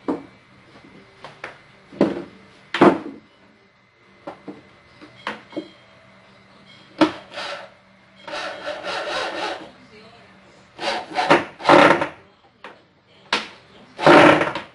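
Wooden panels and boards knocking and scraping against each other while they are handled and fitted, in irregular short bursts. There is one longer grating stretch about eight seconds in and a loud scrape near the end.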